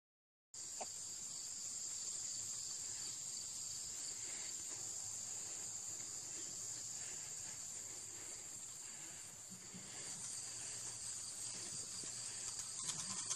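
A high, steady insect buzz from a summer chorus of insects, starting about half a second in after a brief dropout.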